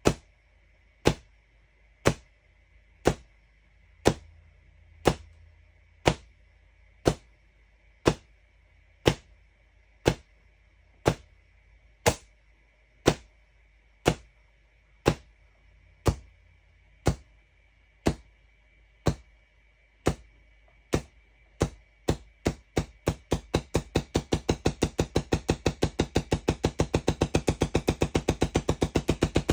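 QCW Tesla coil firing single spark bursts, one sharp crack about every second. About twenty seconds in the bursts come faster and faster until they run together into a rapid crackling rattle of many sparks a second.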